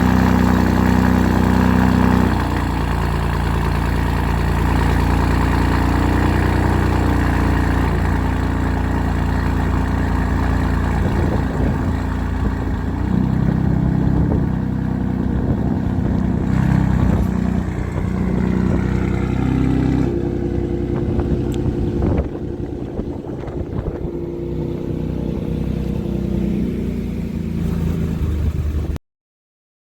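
Ford 2.7L EcoBoost twin-turbo V6 idling through an aftermarket Borla exhaust after a cold start. Its idle drops a little about two seconds in and wavers a few times later, and the sound cuts off suddenly near the end.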